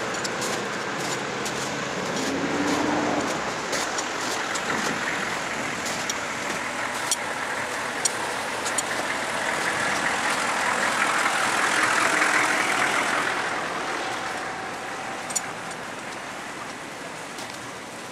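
Traffic passing on a snowy street: a steady hiss of tyres and engines that swells as a vehicle goes by about ten to thirteen seconds in, with a few scattered clicks.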